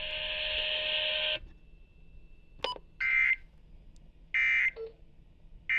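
Specific Area Message Encoding (SAME) header of an Emergency Alert System alert: three short, identical bursts of warbling data tone about a second and a half apart, marking the start of a new severe thunderstorm warning. Before them comes a second and a half of steady hiss.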